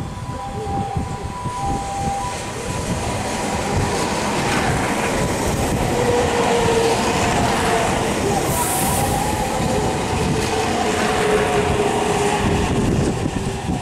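Meitetsu 2200 series electric train pulling into a station and running past close by, wheels clattering on the rails, with a steady whine as it slows. A two-note warning tone sounds at the start and stops about two seconds in.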